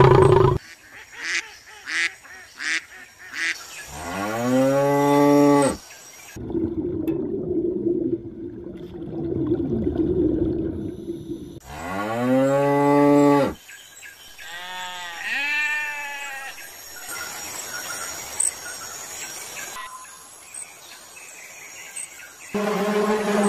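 Cows mooing: two long, loud moos several seconds apart, each rising at the start and then held, followed by a few shorter, higher calls.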